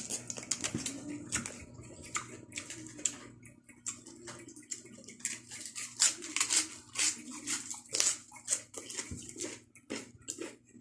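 Close-miked chewing of raw cabbage: an irregular run of crisp, wet crunches, several a second.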